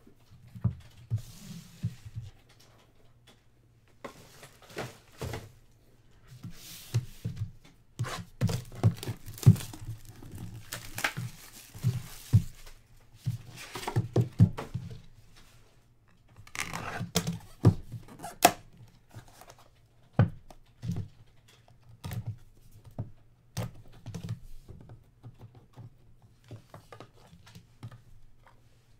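Hands opening a sealed trading-card box: wrapping tearing and crinkling in several stretches, mixed with irregular knocks and thunks of the cardboard boxes being handled on the table.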